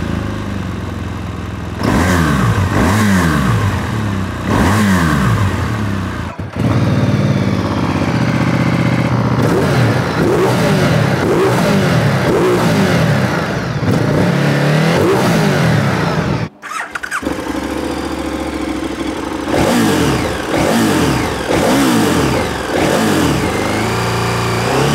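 Three big twin-cylinder adventure motorcycles run one after another, each idling and then blipped through a series of quick revs that rise and fall: first a BMW GS boxer twin, then, after a cut about six seconds in, a Ducati Multistrada V-twin, then, after a second cut about sixteen seconds in, a KTM Super Adventure S V-twin.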